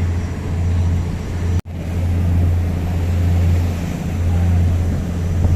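A boat's engine running with a steady low hum, heard from aboard. The sound cuts out for an instant about a second and a half in.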